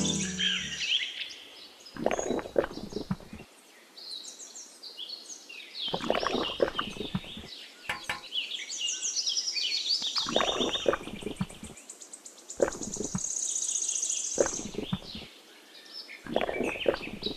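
Birds chirping high in the background, with about six short bursts of many small clicks and taps as gel water beads are scooped and poured from a small metal cup into a plastic pond basin.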